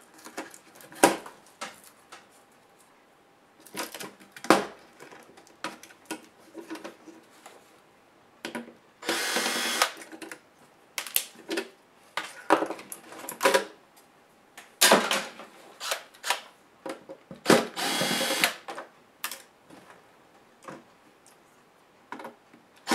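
Cordless electric screwdriver whirring in short runs of about a second, backing screws out of a laptop chassis. Sharp clicks and knocks of small parts and tools being handled come between the runs.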